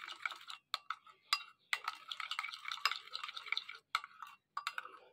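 A steel spoon stirring a thick yogurt-and-cream marinade in a glass bowl: wet scraping with a few sharp clicks of the spoon against the glass.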